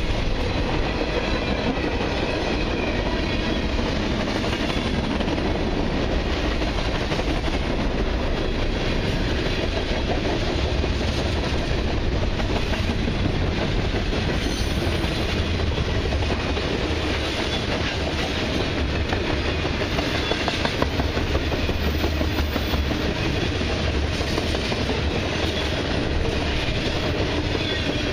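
Freight cars of a long mixed freight train rolling steadily past, steel wheels running on the rails.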